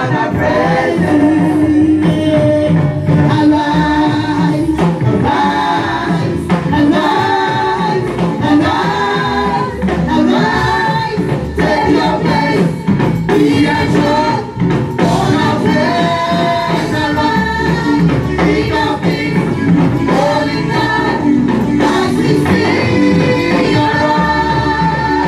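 Gospel singing with a band: voices singing a melody over steady instrumental accompaniment.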